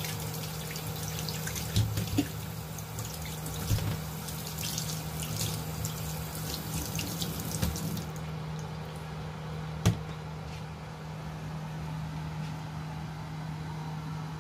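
Tap water running and splashing into a stainless steel sink as blanched pork bones are rinsed by hand, with a few knocks. The water stops about eight seconds in, leaving a steady low hum and one sharp click.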